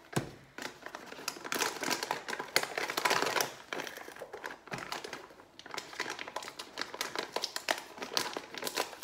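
Crinkling and rustling of packaging as a cardboard box of rolled oats is opened and a hand rummages inside it.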